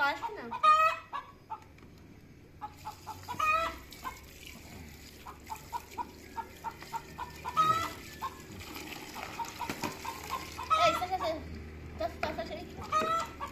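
Chicken clucking in a fast, even run of short notes, broken every few seconds by a louder, higher squawk, about five in all.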